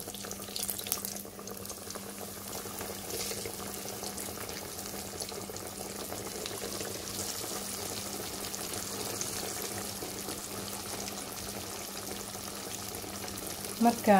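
Spice-coated fish deep-frying in hot oil: a steady sizzle, with a few sharper crackles about a second in.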